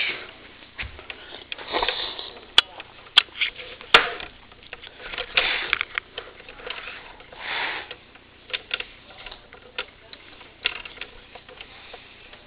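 A person sniffing repeatedly right at the microphone, short breathy sniffs every second or two, with a few sharp clicks from the camera being handled.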